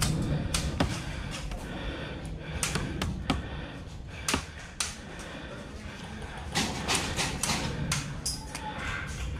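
Irregular sharp clicks and cracks of airsoft guns firing and BBs striking cover, scattered throughout, over a steady low rumble.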